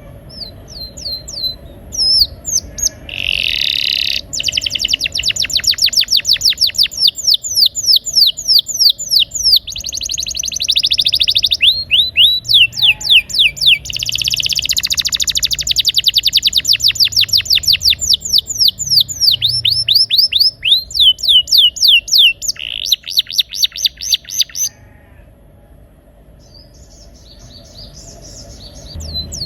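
Domestic canary singing a rolling song: long, fast trills of repeated falling notes, several a second, broken by short pauses, with a quieter lull near the end.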